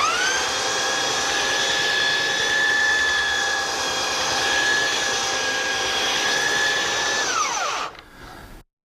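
Electric belt sander switched on, spinning up in a moment to a steady high whine with a rushing belt noise, then switched off about seven and a half seconds in, its pitch falling as it winds down.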